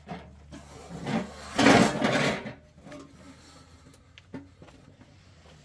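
Household belongings being handled and shifted: rubbing and scraping, with a loud rustling scrape about two seconds in and a few light knocks after it.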